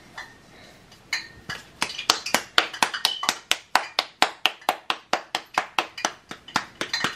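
Bare hands patting a ball of corn masa dough flat between the palms to shape a gordita. The quick, even slaps come about four a second, starting about a second in.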